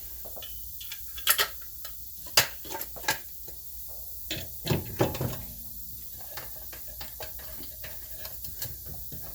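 Scattered clicks and light metallic taps of hub bolts and hand tools being handled, over a steady hiss. The taps cluster in the first half and thin out to occasional ticks later.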